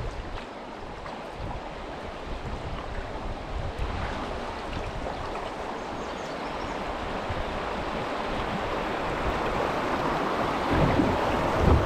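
Rushing water of a small river rapid heard from a paddled boat, a steady noise that slowly grows louder, with a few low thumps near the end.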